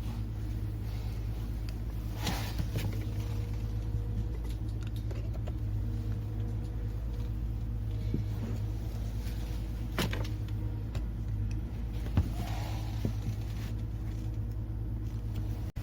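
Honda XL125S's air-cooled single-cylinder four-stroke engine idling steadily, with a few sharp clicks over it; the loudest click comes about twelve seconds in.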